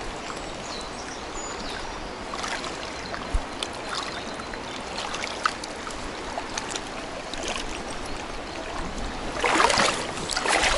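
River water rushing steadily, with scattered small clicks from handling a caught fish and fishing tackle, and a louder scuffing handling noise near the end.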